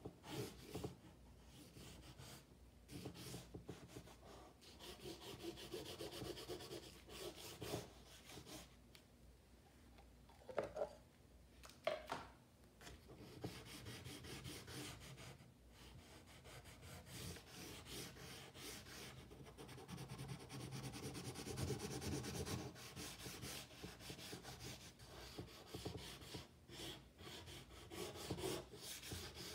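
Dry drawing stick scratching and rubbing across paper in many short, quick strokes, a sketch being drawn and shaded by hand. A few strokes are louder, around eleven and twelve seconds in.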